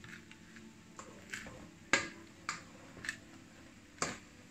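A spatula knocking and scraping against a frying pan while stirring rice: about six irregular clicks, the sharpest about two seconds in.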